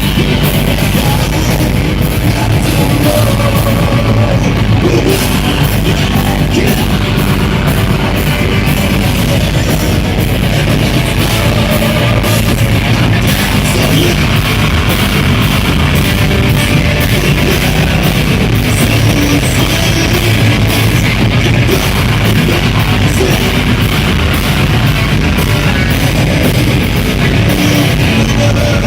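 Rock band playing loudly and without a break, with electric guitars and drums.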